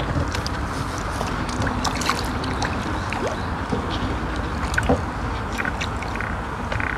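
Hooked crucian carp splashing and thrashing at the water's surface as it is played on the rod. Scattered small splashes and ticks sound over a steady background hiss.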